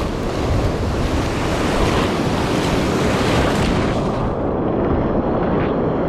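Ocean surf breaking and washing in shallow water, a steady loud rush, with wind buffeting the microphone. About four seconds in the hiss turns duller.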